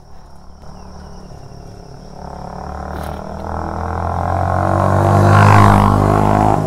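Yamaha R15 V3 single-cylinder sports motorcycle approaching at speed and passing close by. Its engine note grows steadily louder for several seconds, peaks near the end, then begins to fall away.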